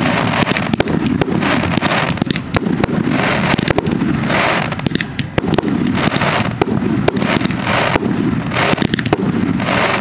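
Fireworks display: aerial shells bursting in a dense, unbroken string of sharp bangs, several a second, over swells of crackling noise.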